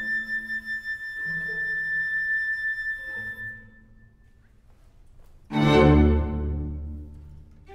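A solo flute holds a long high note over low string notes, then falls silent. After a short pause, about five and a half seconds in, the string orchestra comes in with a loud full chord that slowly dies away.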